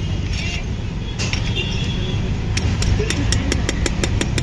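A rapid, regular run of sharp clinks, about five a second, starts about halfway in, over a steady low rumble of street traffic.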